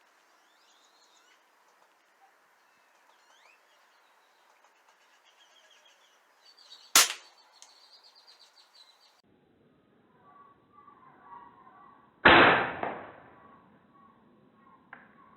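Two shots from a Daisy Powerline 880 multi-pump air rifle: a sharp crack about seven seconds in, and a duller, louder report with a short ring-out about twelve seconds in. Small birds chirp in the background.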